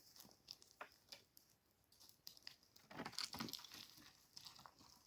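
Near silence with faint scattered clicks and rustles, a few a little louder about three seconds in.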